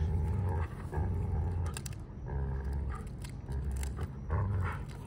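Two Doberman pinschers growling in repeated low bursts while tugging on a stick between them: play growling in a tug-of-war.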